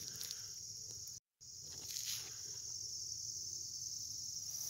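Steady high-pitched insect chorus, like crickets trilling in summer grass, with no pauses. The sound drops out completely for a moment just after a second in.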